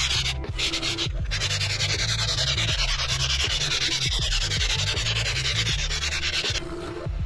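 Abrasive pad scrubbing the deck surface of a Toyota 3S-GE cast-iron cylinder block: a steady, fast rasping scour from about a second in until shortly before the end. Background music plays underneath.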